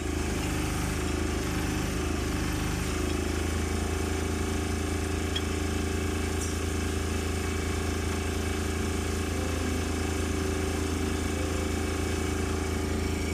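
An engine running steadily, a low, even drone that does not change.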